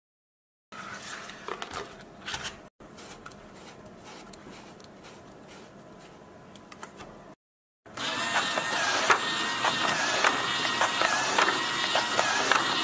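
Small DC gear motors of a cardboard money counting machine starting up about eight seconds in and running steadily, a whine with a run of clicks as banknotes are fed through its rollers. Before that, quieter handling noises of the cardboard machine and paper.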